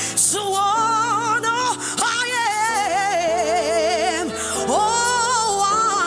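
Worship music: a solo voice singing long, wordless lines with wide vibrato over sustained keyboard chords.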